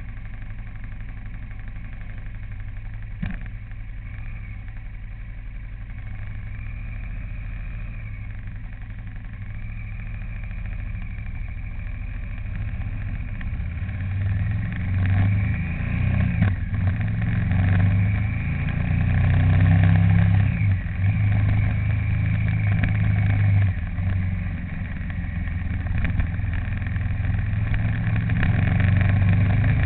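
A vehicle's engine and road noise while driving, a steady low hum that grows louder from about halfway through. There is a single sharp click about three seconds in.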